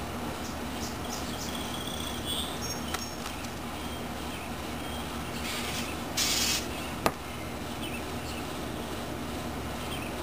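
A small bird fighting its reflection in a window glass: a few brief high chirps about two seconds in, a short burst of fluttering just after six seconds and a single sharp tap on the glass a moment later, over a steady background hum.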